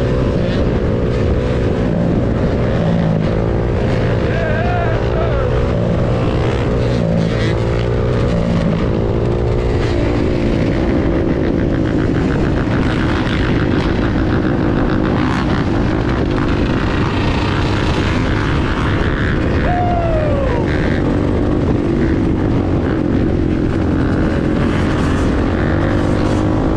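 Quad (ATV) engine running under way, its pitch rising and falling with the throttle, among other dirt bikes and quads.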